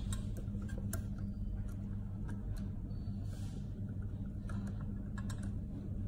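Small screwdriver and wire ends clicking and tapping against a plastic screw-terminal block as a lock wire is fastened: a handful of light, irregular clicks over a steady low hum.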